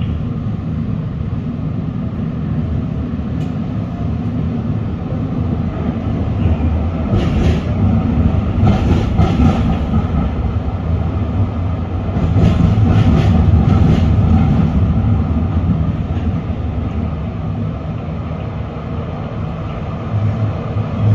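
Stadtbahn light-rail car heard from inside while running along the track: a steady low rumble of wheels and running gear. Clusters of clatter come as the wheels cross points or rail joints, about a third of the way in and again just past the middle, where it is loudest.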